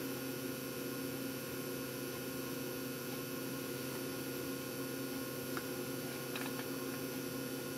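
Steady low mains hum from the switched-on power supply and single-6JZ6 tube amplifier, warming up and not yet keyed. Two or three faint ticks come about two-thirds of the way through.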